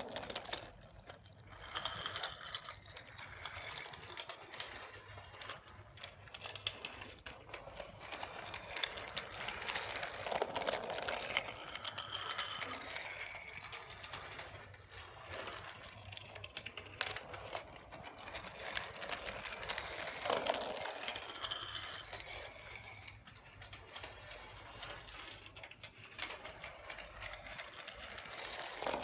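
Toy train running: its small motor and gears whirring, with many small clicks and rattles, the whir swelling and fading every few seconds.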